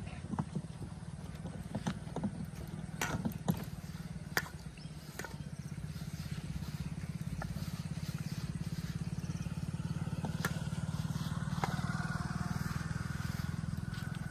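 A small engine running steadily, growing slowly louder, with a few sharp clicks and knocks in the first five seconds.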